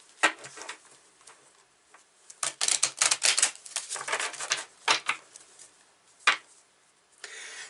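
Flurries of light, sharp clicks and taps, a quick rapid run in the middle and a single louder click near the end.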